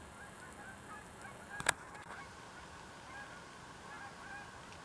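Many short calls from a flock of birds in the distance, overlapping steadily, with one sharp click about one and a half seconds in.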